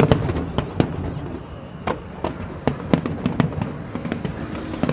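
A fireworks display with aerial shells bursting: about a dozen sharp bangs at uneven intervals, some in quick succession.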